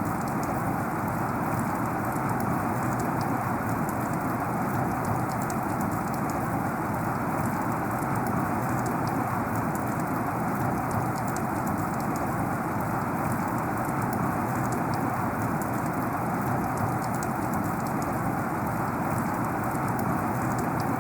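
Heavy rain falling steadily, a dense even hiss with many individual drops ticking through it.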